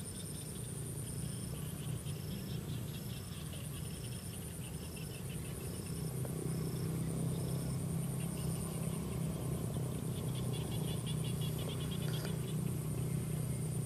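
Insects calling: a steady high-pitched drone, with a short chirp repeating about once a second through the first half and bursts of rapid trilling later on. A low steady hum runs underneath.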